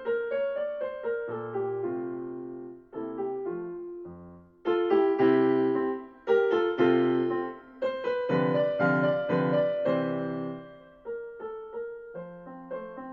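Yamaha Clavinova digital piano playing a gentle preset piece, chords and melody notes struck and dying away in short phrases. It is heard through its own speakers via a pair of room microphones.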